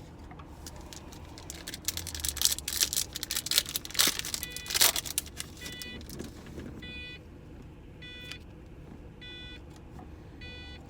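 Foil trading-card wrapper crinkling and tearing for a few seconds, then a car's warning chime beeping over and over, about once every second and a bit.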